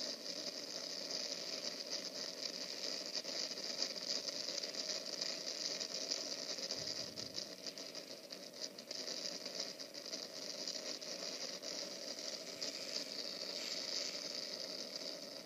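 Steady hiss of rain and wind, with a fine crackle of drops running through it.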